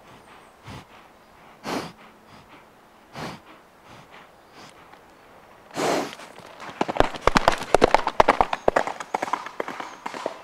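A horse breathing out in short, regular breaths about every second and a half, then a loud snort about six seconds in. From about seven seconds, rapid hoofbeats as it gallops.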